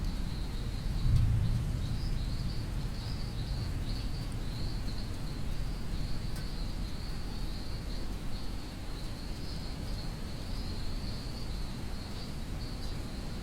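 Crickets chirring in a steady, unbroken high drone, over a low rumble that swells briefly about a second in.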